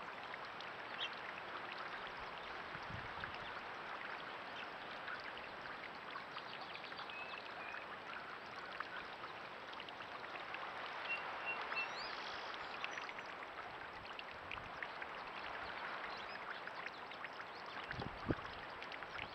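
Small pond fountain spraying and splashing steadily into the pond water. A single thump near the end.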